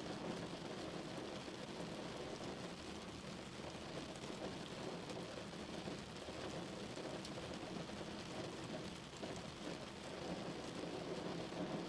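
Heavy rain drumming steadily on a car, a dense patter of drops with fine individual hits.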